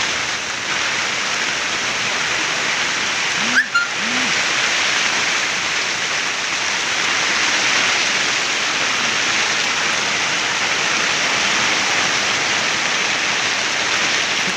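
Steady hiss, broken by one sharp click about three and a half seconds in.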